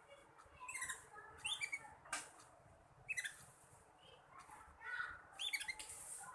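Young black-red canary twittering in a few short bursts of quick high chirps, the unformed practice warble of a juvenile learning to sing, with a sharp click about two seconds in.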